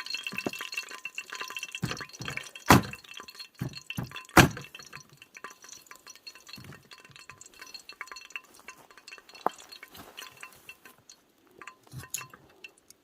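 Scattered clinks and knocks of kitchenware being handled during cooking prep, with two louder knocks a few seconds in.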